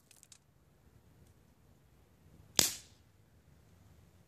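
A Crosman 1077 CO2 pellet rifle fires a single shot about two and a half seconds in: a sharp, short crack with a brief tail.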